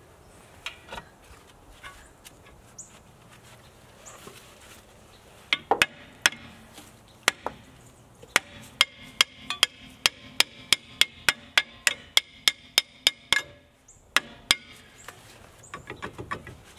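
A hammer beating on a seized brake drum to knock it loose: a few scattered sharp metal blows, then a steady run of about three strikes a second for some five seconds, and two last blows.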